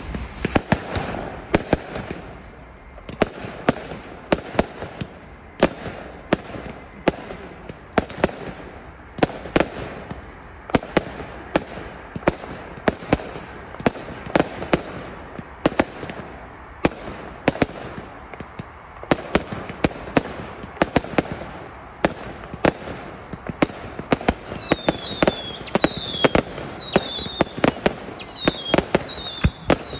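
Fireworks display: a rapid, irregular run of sharp bangs with crackling between them. About three-quarters of the way through, shrill whistles that fall in pitch join in, several at a time.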